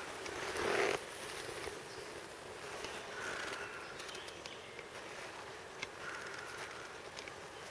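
Rustling of tall grass and a rubberized protective suit as a man in a gas mask crouches and handles his gear, with a louder rustle about a second in. A short hiss comes about every three seconds, fitting breaths through the gas mask's valves.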